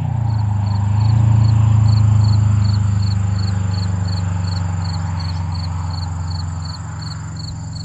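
Subaru WRX STI's turbocharged 2.5-litre flat-four exhaust giving a steady low drone as the car drives away, the drone slowly fading. Insects chirp in a regular pulse of about three beats a second over it.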